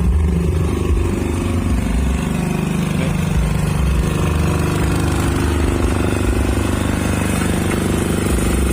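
Power generator engine running steadily at a constant speed, a continuous low-pitched rumble.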